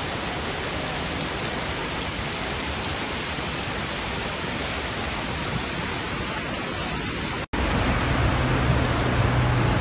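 Heavy rain pouring down onto pavement and standing water, a steady hiss. About seven and a half seconds in it cuts to a louder stretch of downpour with a low steady hum underneath.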